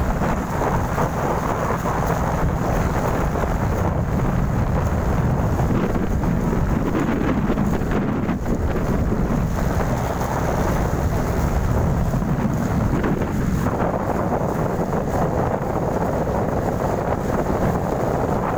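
Wind buffeting the microphone aboard a moving motorized outrigger boat, a steady low rumble mixed with the drone of the boat's engine.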